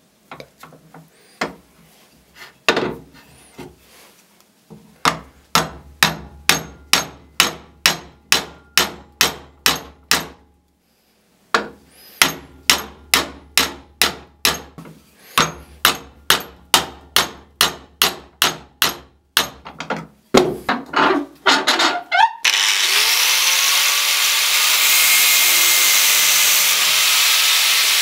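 A hammer strikes a steel pin set through a cleaver's wooden handle, riveting it over a washer. The blows come in long, even runs of about two a second, with short pauses, and speed up just before the end of the hammering. About 22 seconds in, an angle grinder starts with a rising whine and runs steadily.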